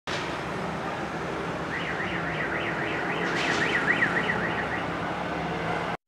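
A warbling electronic alarm, its pitch sweeping up and down about four times a second, sounds from about two seconds in until nearly five seconds in, over a steady background noise.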